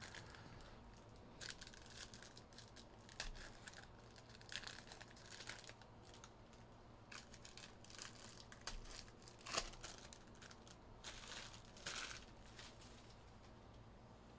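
Faint, scattered crinkling and rustling of trading-card pack wrappers being opened and handled, with soft flicks of cards.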